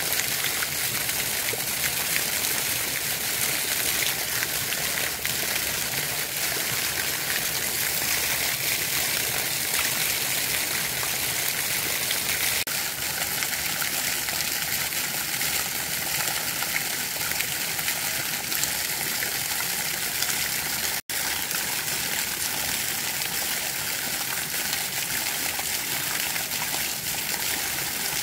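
Steady rush of running water, as from a small stream or flowing trickle. It cuts out for an instant about three quarters of the way through.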